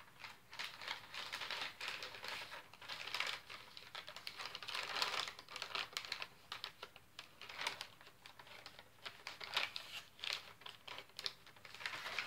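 MRE plastic packaging being handled and crinkled: the pouches and the flameless ration heater bag rustle with quick, irregular crackles.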